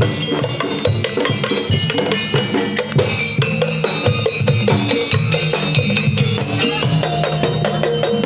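Music led by drums and percussion, with snare and bass-drum hits under held pitched notes.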